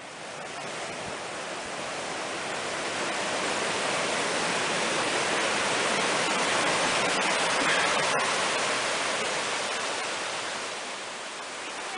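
Small mountain creek rushing over rocks in white water: a steady hiss of flowing water that fades in at the start and grows louder toward the middle.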